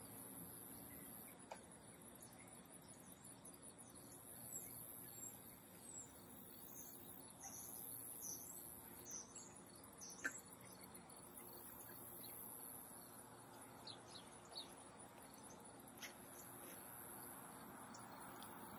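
Faint outdoor ambience: birds chirping in short falling notes over a steady high insect buzz, with a few faint clicks.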